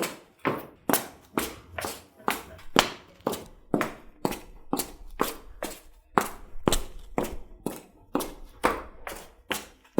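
Footsteps on a hillside, walking at an even pace of about two steps a second.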